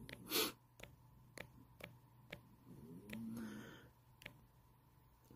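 Faint clicks of typing on a phone's touchscreen keyboard while a password is entered, a light tap about every third of a second. A short breathy puff comes just after the start, and a brief soft hum with a hiss around three seconds in.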